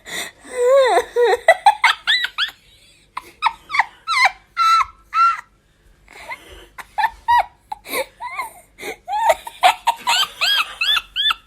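A person's high-pitched, squealing laughter in runs of short rising-and-falling bursts, with two brief pauses; a laugh said to sound like a seagull.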